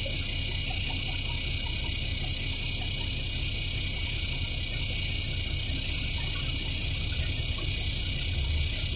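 Cummins ISBe diesel engine of a NefAZ 5299 city bus idling while the bus stands still, heard from inside the passenger cabin as a steady low hum under a constant high hiss. The low hum grows a little stronger near the end.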